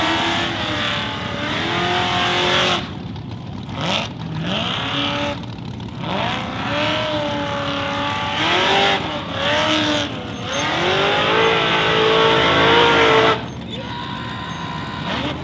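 Formula Offroad buggy's engine revving hard under full throttle, its pitch climbing and falling over and over as the throttle is worked and let off, with several sudden lifts. Near the end it settles to a lower, steadier note.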